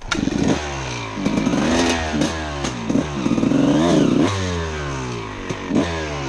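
Suzuki RM250 two-stroke dirt bike engine being ridden on a trail, its pitch rising and falling again and again with throttle and gear changes, with a few sharp knocks from the bike over rough ground.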